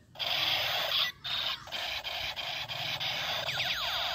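Electronic toy sniper rifle playing its battery-powered firing sound effects. First comes a harsh hissing crackle broken by a few short gaps, then from about three and a half seconds a quick run of repeated falling 'pew' tones.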